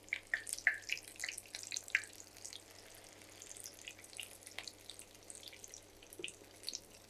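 Egg-dipped potato and vegetable cutlets shallow-frying in oil in a pan: a quiet sizzle with scattered pops and crackles, busiest in the first two seconds and sparser after.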